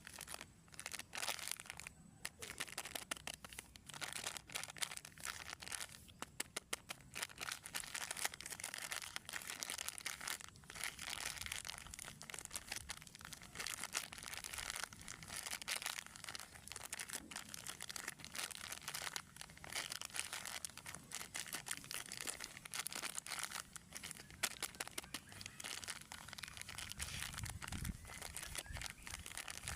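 Plastic snack wrappers crinkling and crackling as they are handled, with many small sharp crackles throughout.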